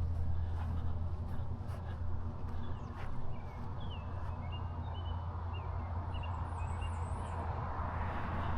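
Small birds chirping, several short calls and a higher trill in the middle seconds, over a steady low rumble.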